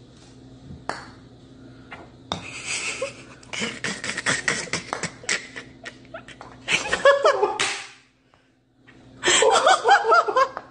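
Sharp clicks and taps of a putter striking golf balls on a putting mat, then a person laughing in short bursts twice in the second half.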